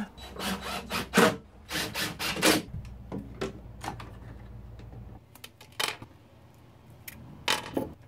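Scraping and clicking of hardware and tools as a 110 V duplex wall receptacle is fitted and screwed into its electrical box. A quick run of rubbing strokes in the first couple of seconds, then a few sharp clicks further on.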